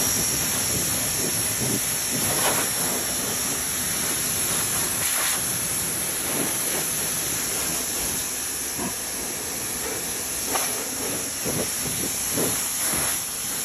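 Greenworks cordless pressure washer's water jet hissing steadily as it blasts a quad's bodywork and snowy tyre, with brief surges now and then as the spray moves across different surfaces.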